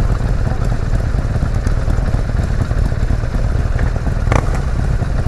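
Motorcycle engines running, a steady low rumble, with one short knock about four seconds in.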